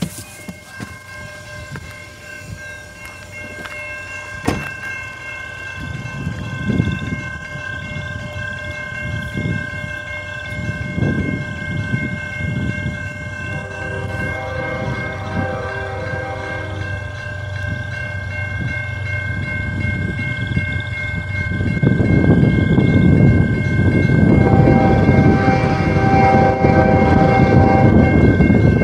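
Railroad crossing bells ringing steadily while an approaching train's rumble grows louder. The locomotive sounds its chime horn twice, once around halfway and again near the end.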